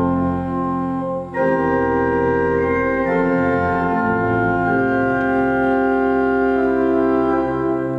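Organ music in slow held chords, the chord changing about a second in and twice more a few seconds later.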